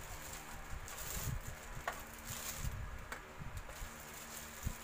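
Handling noise from a plastic Wi-Fi modem being turned over in the hands, with soft thumps and a couple of light clicks about two and three seconds in, over a steady low hum.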